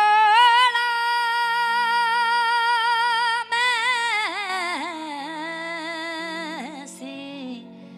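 A boy singing a long, high, wordless held note with vibrato, then breaking into descending ornamented runs that fade away about seven seconds in. A soft, steady low accompaniment note sounds underneath.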